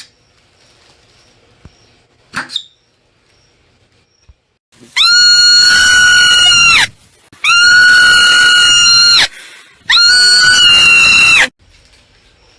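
Marmot giving three long, loud, high-pitched calls, each held steady for about two seconds with short pauses between, preceded by one brief chirp a couple of seconds in.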